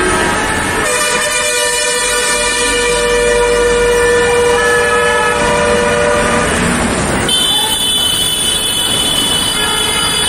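Road traffic with vehicle horns held long: one horn blows steadily for about six seconds, then a second, higher-pitched horn takes over for the last few seconds, over the steady noise of passing buses and motorbikes.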